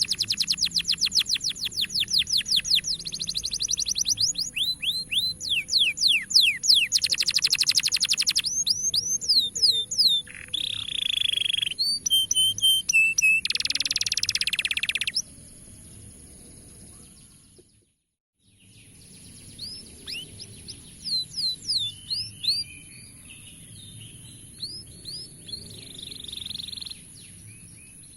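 Canary song: fast rolling trills and runs of quick falling whistles, loud through the first half. It stops dead for a moment a little after halfway, then comes back quieter with shorter phrases, over a steady high-pitched tone.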